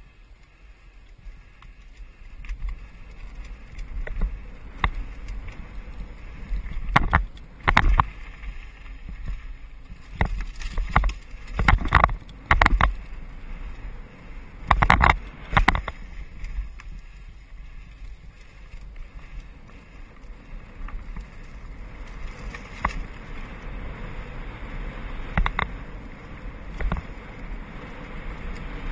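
Mountain bike riding fast down a dirt trail: steady tyre rumble and wind rushing over the handlebar-mounted camera, with bursts of sharp clacks and rattles from the bike jolting over bumps, thickest in the middle stretch. The rushing noise grows louder again toward the end.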